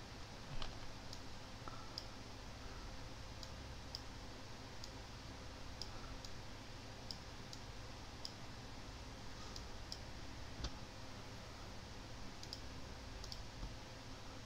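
Computer mouse clicking: short sharp clicks at irregular intervals, about one or two a second, over faint low background noise.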